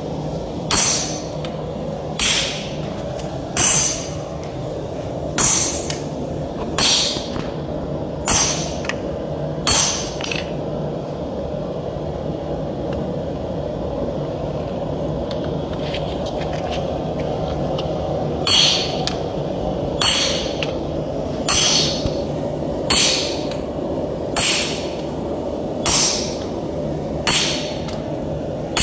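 Sledgehammer striking red-hot steel on an anvil, forging an axe head, about one blow every second and a half. The blows stop for about eight seconds in the middle, then resume at the same pace, over a steady low hum.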